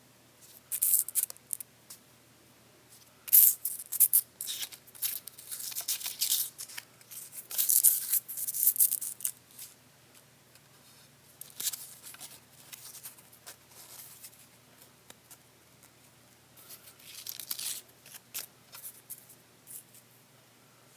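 Irregular bursts of rustling and scraping, some short and some lasting a second or more, loudest between about three and ten seconds in, then scattered and fainter.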